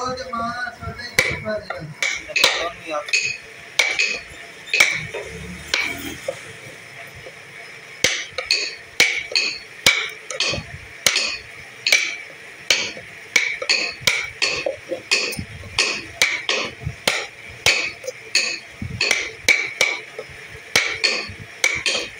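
A mallet striking a steel carving chisel into a wooden box, hand carving: sharp taps with a short metallic ring. They come sparsely at first, then steadily at about one and a half a second.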